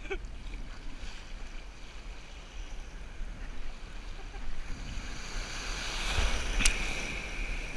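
Small ocean waves washing over shoreline rocks. It grows louder about five to six seconds in as a wave breaks close by, with a single sharp knock just after.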